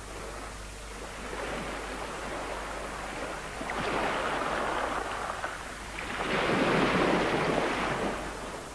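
Small waves washing onto a beach: a rush of surf that swells twice, about four seconds in and more loudly about seven seconds in, then dies back.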